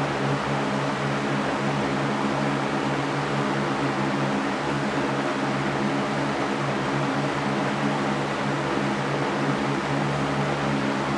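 Electric fan running steadily: an even rushing hiss of moving air over a low motor hum.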